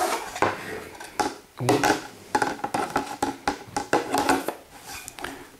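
Hollow-core PVC nano wall panels being handled and fitted together at their tongue-and-groove joint: a run of irregular plastic clicks, knocks and scrapes that thins out near the end.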